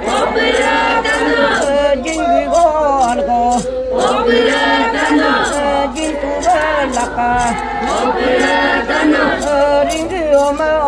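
A large group of voices chanting and singing together, with a regular high clinking beat about three times a second.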